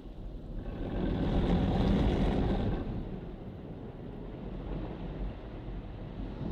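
Tammermatic T700 rollover car wash running over the car, heard from inside the cabin: rotating brushes and water spray washing across the body and glass over a low machine rumble. The wash swells louder for about two seconds, about a second in, then settles to a steady rush.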